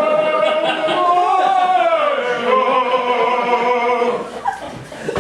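A man's voice singing long held notes in an operatic style, the pitch gliding slowly up and down, breaking off about four seconds in.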